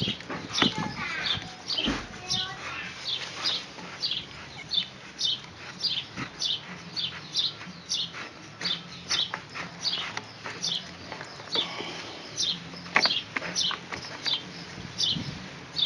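A bird calling over and over, short falling chirps about twice a second, with a few scattered clicks.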